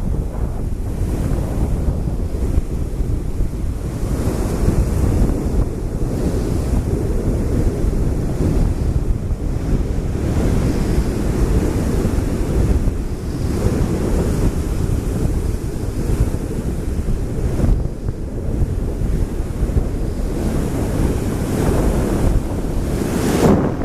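Ocean waves breaking and washing up a sandy beach, a steady rushing surf that swells now and then, with wind buffeting the microphone.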